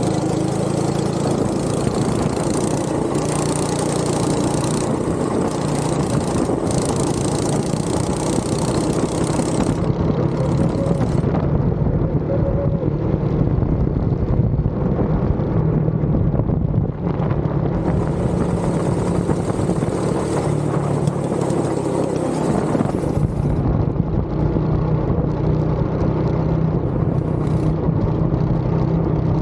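Go-kart engine running continuously under the driver while lapping the track, its note shifting with the throttle through the corners. Wind rushes on the microphone at times.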